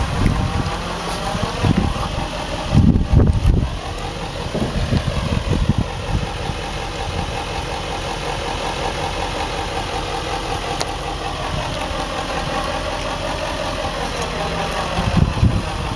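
Passenger coaches rolling past on the rails: a steady rumble of wheels and running gear, with a few heavy low thumps, the strongest about three seconds in.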